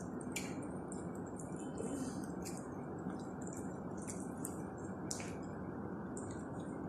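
Steady low room noise with a few faint, short clicks scattered through it.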